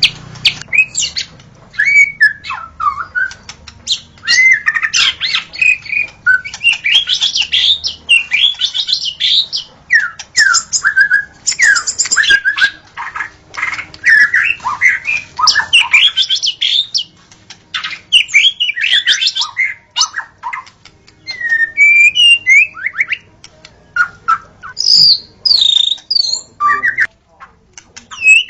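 White-rumped shama in full song: fast, varied whistled phrases with sweeping notes, mixed with harsh chattering and clicking notes, delivered in bursts with brief pauses between them.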